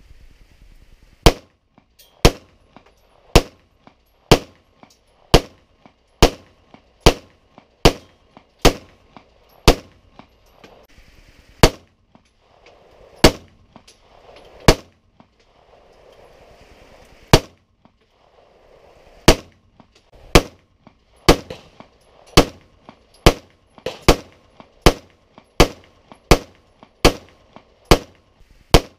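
Smith & Wesson SD9VE 9mm pistol being fired: about thirty sharp shots, mostly less than a second apart, with a few longer pauses around the middle.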